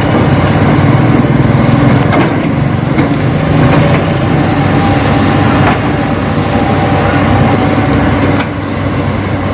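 Engine sound of an RC construction vehicle running steadily, with a few light clicks; it drops in level about eight and a half seconds in.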